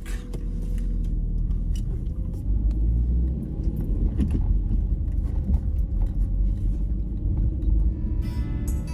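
A car driving, with a steady low rumble of engine and road noise. Music comes in near the end.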